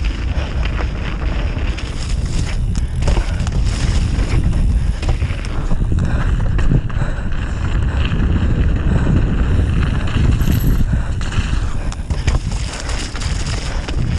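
A downhill mountain bike rolling fast over a muddy dirt trail: steady wind rush on the action-camera microphone over the rumble of the tyres, with scattered knocks and rattles from the bike over bumps.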